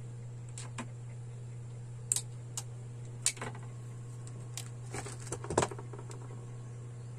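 Scattered light clicks and metallic taps of wiring parts and tools being handled. The loudest comes about five and a half seconds in, over a steady low hum.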